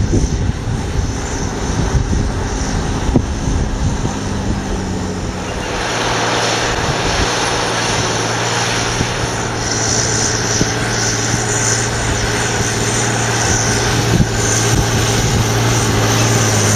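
Chip-tuned John Deere 8420's six-cylinder diesel engine working hard at a steady pitch, pulling a cultivator at full depth. It grows louder about six seconds in.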